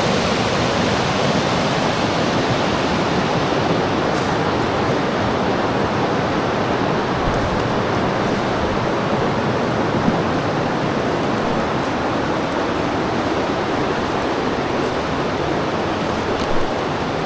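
Steady rush of a fast-flowing river.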